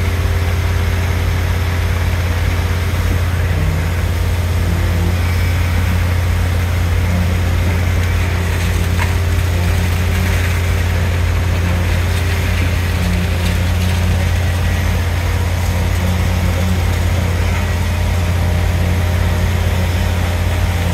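Concrete pump truck running steadily under load with a constant low drone while concrete is pumped through its hose.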